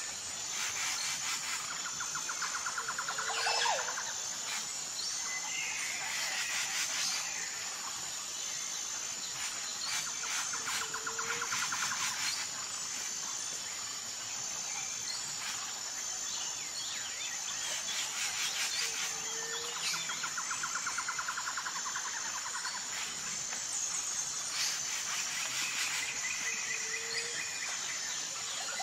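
Outdoor nature ambience: a steady, fast-pulsing high insect trill with birdsong over it. A rapid rattling bird trill and short call notes come back in the same pattern about every eight seconds.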